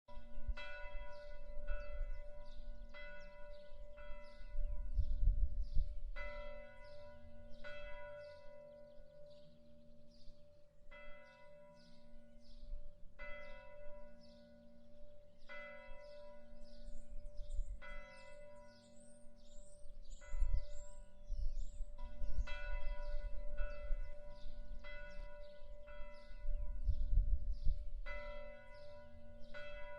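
A single church bell tolling from a distance, struck repeatedly about one to two seconds apart with a few longer pauses, each stroke ringing on with the same pitch.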